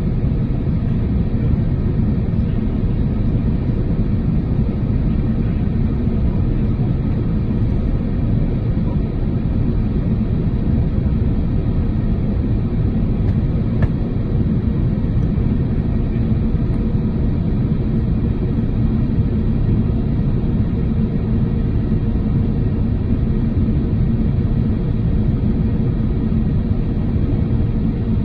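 Steady low rumble inside the cabin of an Airbus A350-900 in flight: airflow and engine noise, with a faint steady hum running through it.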